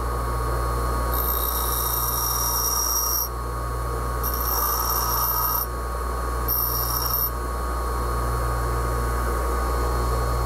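Bench grinder motor humming steadily while an O1 tool-steel boring bar is pressed against the side of the wheel three times, each pass a high-pitched grinding hiss; the last pass is the shortest. The grinding is shaping the relief under the tool's cutting edge.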